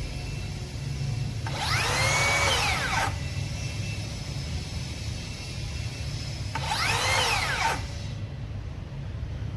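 Makita DHS783 cordless circular saw spinning up and winding down twice, each run about a second and a half: brief trigger pulls with the blade running free. A steady low hum runs underneath.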